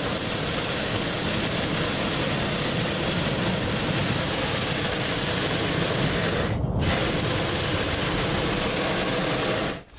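Hot-air balloon's propane burner firing in one long, steady blast of rushing noise, thinning for a moment about two-thirds of the way through.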